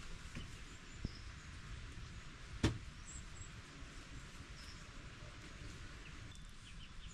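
Quiet outdoor background with faint, scattered bird chirps. There is a light click about a second in and a sharper single knock near the middle.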